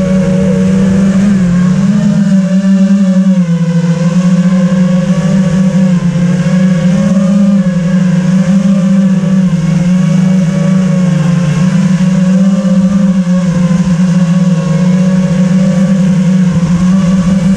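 FPV quadcopter's motors and propellers whirring loud and steady. The pitch shifts up and down a little with changes of throttle.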